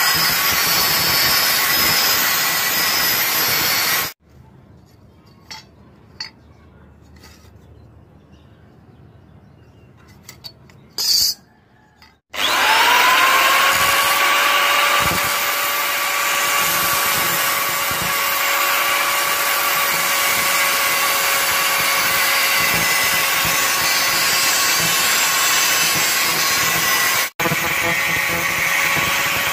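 Angle grinder with a thin cutoff disc cutting through the rusty steel of an old handsaw blade. It shuts off about four seconds in, leaving a few light clicks and one short burst. About twelve seconds in it spins back up with a rising whine that settles to a steady pitch, and it grinds steadily through the blade's edge.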